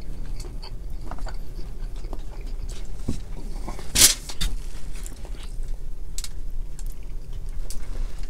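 Close-up mukbang eating sounds: chewing, and the cracking and peeling of boiled crab and shrimp shells by hand, heard as many small clicks with one louder crack about four seconds in, over a low steady hum.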